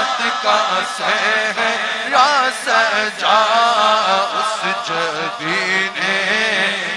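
A solo voice chanting an Islamic devotional nasheed, its melody held and wavering with ornamented bends.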